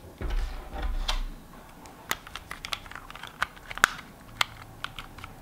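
Small plastic clicks and handling noise from a compact camera turned over in the hands, with a brief rustle near the start.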